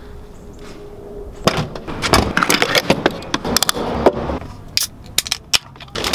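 Plastic being handled: crinkling and crackling with sharp clicks and knocks. It starts about a second and a half in, after a faint steady hum, and goes on in fits to the end.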